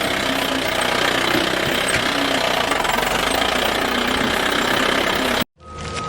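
Engine running steadily at idle with a repeating knock, cutting off abruptly about five and a half seconds in; a different recording then starts with a steady beeping tone.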